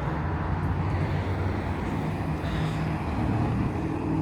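Steady engine noise from a passing motor vehicle, a low drone that grows a little louder and clearer near the end.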